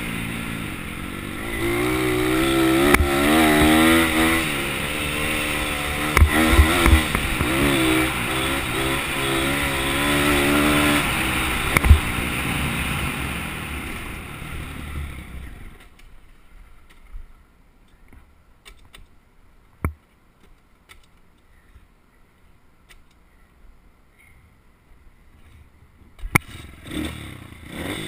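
Pit bike engine revving up and down as it is ridden over a dirt trail, with the pitch rising and falling. About fifteen seconds in it dies away, leaving only scattered clicks and knocks. Near the end the engine is heard again.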